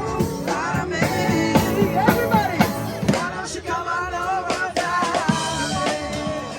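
Music with a singing voice and a drum kit keeping a beat. It cuts off suddenly at the end.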